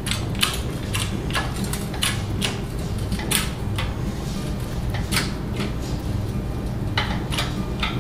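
Shop hydraulic press bending a steel plate in a bending jig: a string of sharp metallic clicks and ticks, often in pairs, over a steady low hum.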